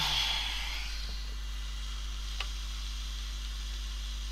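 A brief sizzling hiss of flux under a hot soldering iron on a circuit board, fading within about a second. A small tap follows about two and a half seconds in. A steady low electrical hum runs underneath.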